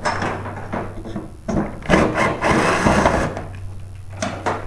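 Handling noise as a tanning-bed ballast board on its metal base plate is loosened and shifted on the sheet-metal ballast support: irregular scraping and rubbing, loudest in the middle, with two light clicks near the end.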